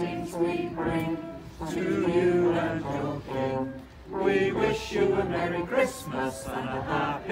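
A choir singing a carol unaccompanied, a cappella.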